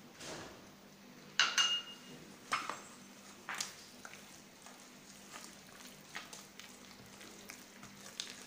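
A spoon stirring thick chocolate cake batter in a steel bowl, scraping and clinking against the bowl, louder in the first few seconds and softer after.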